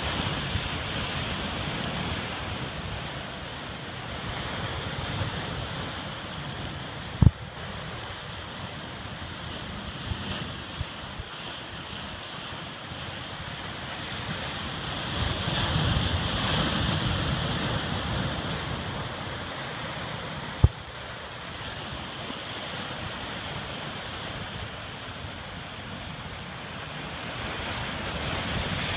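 Pacific surf breaking and washing over rocks, swelling louder about halfway through, with wind buffeting the microphone. Twice, a brief sharp thump stands out.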